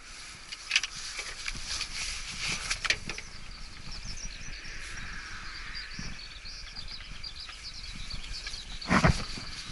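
Small birds chirping against outdoor background noise, with a few sharp clicks in the first few seconds and one brief, loud knock near the end.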